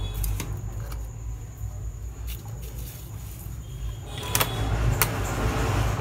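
A few sharp clicks and light knocks as an air-conditioner circuit board and its wiring are handled and a series-lamp test supply is switched on, over a steady low hum. A hiss rises near the end.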